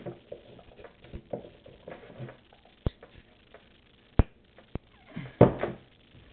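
Handling noise from shotgun parts and a cleaning cloth: scattered light taps and rustling, with three sharp clicks around the middle and a louder burst of handling noise near the end.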